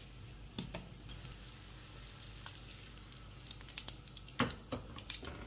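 Mustard seeds in hot oil in a kadai over a low frying sizzle, beginning to pop: sharp crackles that come louder and more often toward the end, the sign that the oil is hot enough for tempering.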